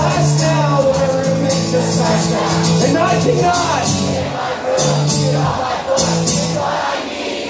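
Live rock music through a concert PA: a male singer with a strummed acoustic guitar, sustained low notes underneath and the crowd's voices mixed in.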